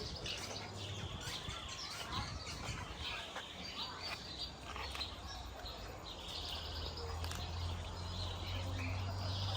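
Many aviary birds, parrots among them, chirping and calling together in a busy, overlapping chatter of short high calls, over a steady low hum.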